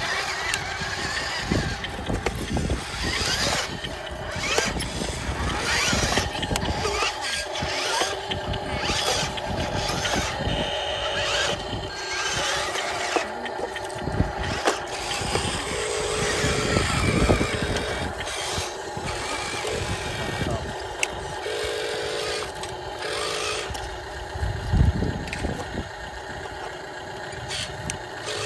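Radio-controlled Mercedes-Benz Arocs toy dump truck running over dirt, a steady mechanical drone with scattered clicks and knocks, and a louder thump near the end.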